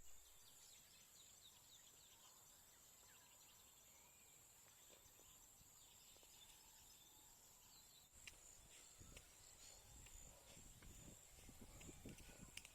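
Near silence: faint outdoor background with a steady high-pitched hiss, joined about eight seconds in by faint clicks and low rumbling.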